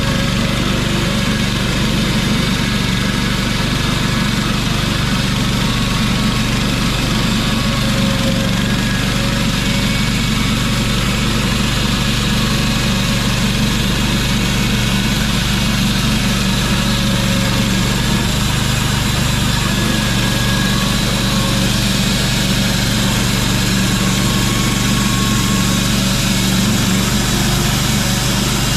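Gasoline engine of a portable band sawmill running steadily while the mill saws a pine log into boards.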